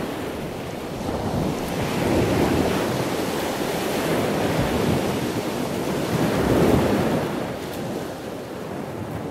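Ocean surf: waves washing in, swelling twice and then dying down.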